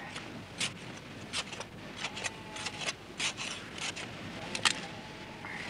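A metal blade digging and scraping into dry, sandy ground by hand: a dozen or so short, irregular scraping strokes.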